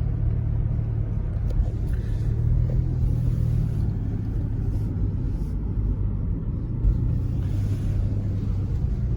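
Car driving slowly, heard from inside the cabin: a steady low engine hum and road rumble.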